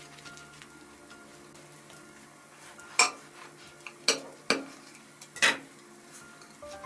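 A knife cutting through a rolled lavash wrap, its blade striking the white plate beneath in four sharp clicks in the second half, over faint background music.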